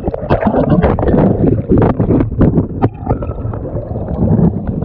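Creek water churning and gurgling around a dropped GoPro as it tumbles in the current, partly underwater, with many sharp knocks and bumps against the housing.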